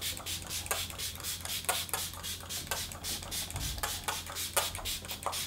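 Fix+ setting spray being pumped onto the face again and again, each pump a short hiss, several a second.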